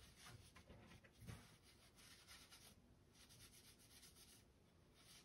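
Near silence, with faint rustling of a paper tissue being handled and a slightly louder soft rustle about a second in.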